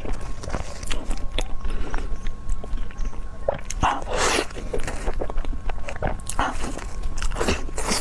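Close-miked chewing of a soft, sticky cream-filled dessert, with wet mouth smacks that come in irregular bursts, the loudest about halfway through.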